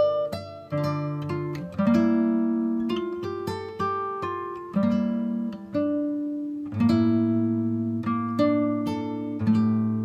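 Background music: a gentle acoustic guitar piece of plucked notes and chords, each one ringing out and fading before the next.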